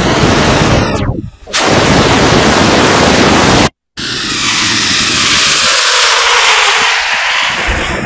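Image sonification made with Photosounder: a picture rendered as sound, heard as a loud, harsh hiss that swoops and dips twice in the first two seconds. It cuts out completely for a moment about halfway, then comes back as a different, shifting hiss.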